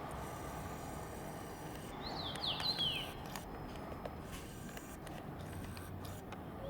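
A common rosefinch gives a short phrase of quick falling whistles, about two seconds in, over steady outdoor background noise.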